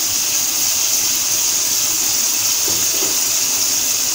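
Steady sizzling hiss of minced meat, onions and meatballs frying in a wok with oyster sauce.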